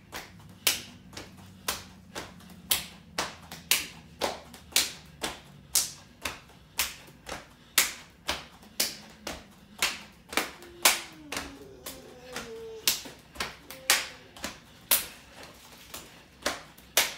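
Jumping jacks: a steady rhythm of sharp hand claps overhead, about two a second, with bare feet landing on the floor.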